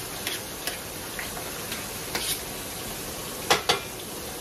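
Pork chops frying in hot grease, a steady sizzle, under a spoon scraping and tapping collard greens out of a plastic colander into a pot, with scattered light clicks and two sharp knocks about three and a half seconds in.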